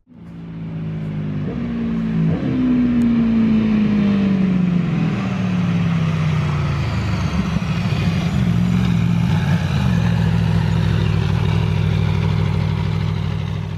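Motorcycle engine running under load. It fades in, then its pitch falls steadily over several seconds and settles into a steady drone.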